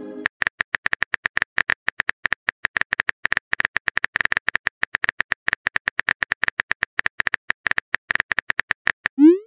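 Simulated phone keyboard clicks, rapid and even, as a text message is typed out letter by letter. Near the end comes a short rising swoop, the message-sent sound.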